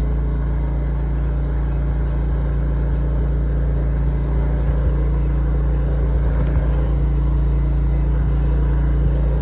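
Sewer hydro-jetter's engine running steadily, a low, even drone.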